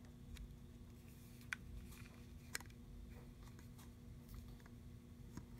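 Faint handling noise from a plastic battery pack casing turned in the hands: two light clicks, about a second and a half in and again a second later, and a few fainter ticks over a low steady hum.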